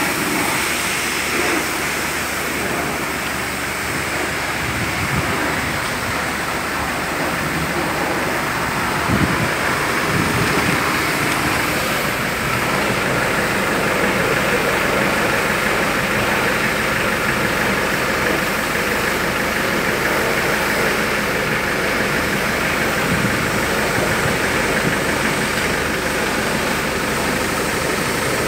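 Engine idling steadily under an even hiss that holds the whole time.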